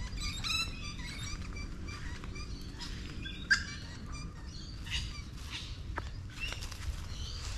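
Superb lyrebird singing loudly in a rapid, varied run of changing calls, with one sharp loud note about three and a half seconds in.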